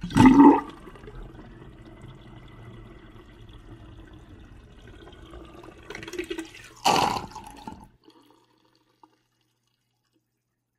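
Water rushing: a loud sudden gush, then a steady run of water, a second loud surge about seven seconds in, and the sound stops abruptly about a second later.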